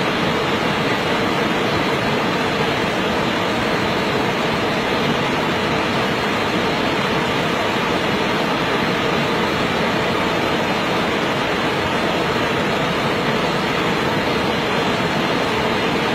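Loud, steady rushing noise, even and unbroken, with no separate sounds standing out.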